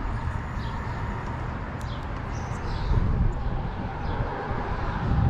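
Birds chirping in short falling notes, several times, over a steady low rumble.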